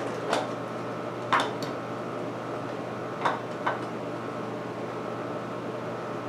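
About five short plastic clicks and knocks from a chainsaw's orange plastic clutch cover as it is pulled off the power head and handled, the loudest about a second in, over a steady background hum.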